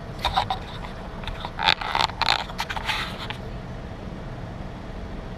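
ATM cash-handling mechanism clattering and whirring for about three seconds while it processes a deposit. A steady low hum runs underneath.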